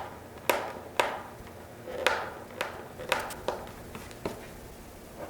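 Old, brittle decal being picked and peeled off a plastic motorcycle part, giving sharp irregular clicks and snaps, about one every half second to second.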